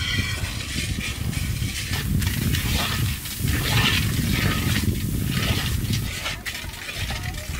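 Hot oil bubbling and sizzling in a large wok as a ladle stirs food in it, over a constant low rumble.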